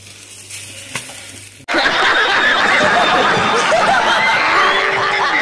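A burst of many people laughing and snickering at once, cutting in abruptly under two seconds in and stopping just as abruptly, like an edited-in laugh track. Before it, a faint steady hum with a single click.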